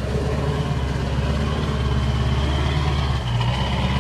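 Truck engine running steadily, a constant low drone.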